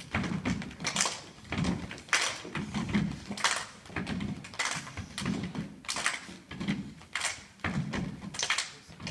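A group of children doing rhythmic body percussion: crisp claps in unison alternating with low thuds on the stage floor, in a slow steady beat.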